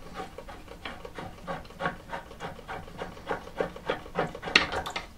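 Water-pump pliers working the nut on a toilet cistern's inlet shank, metal jaws scraping on the nut in short repeated strokes about three a second, with one sharper click about four and a half seconds in.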